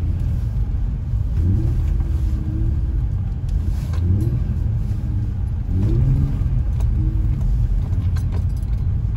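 Infiniti G35 6-speed coupe's 3.5-litre V6 engine, heard from inside the cabin: a steady low rumble that surges up in revs and levels off about four times as the car is driven.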